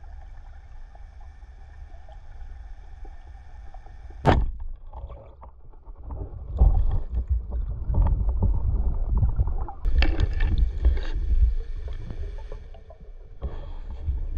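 Water noise picked up by an underwater camera: a steady low rush, one sharp click about four seconds in, then louder rushing and crackling water movement from about six seconds on.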